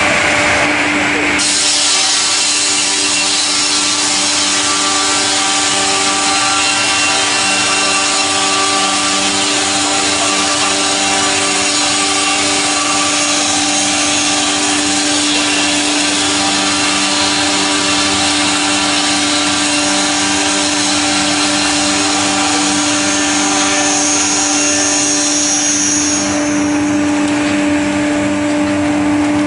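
StrojCAD KR 58 L6 log sawmill sawing through a log: a steady machine hum under a dense rasping hiss of blade through wood. The cutting noise gets stronger about a second and a half in and thins near the end.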